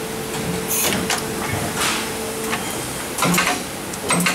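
Injection molding machine opening a three-way stopcock mold: a steady hum that stops a little past halfway, with several short hisses and knocks as the platen and mold halves move apart.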